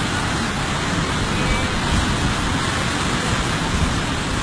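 Typhoon floodwater rushing past in a fast, churning torrent: a steady, loud rushing noise of water.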